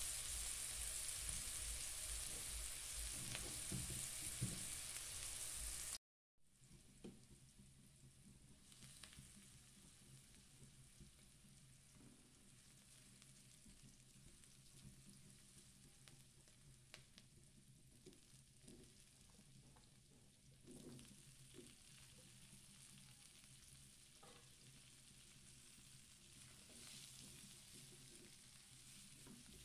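Chopped garlic and onion sizzling in oil in a nonstick wok while being stirred with a silicone spatula. The sizzle is steady and fairly loud for about six seconds, cuts out briefly, then goes on much fainter with scattered ticks and scrapes of the spatula on the pan.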